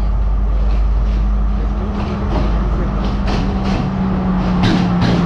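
Sri Lanka Railways Class S14 diesel multiple unit running into the platform: a loud, steady engine drone whose pitch drops slightly near the end as it slows, with a run of sharp clicks.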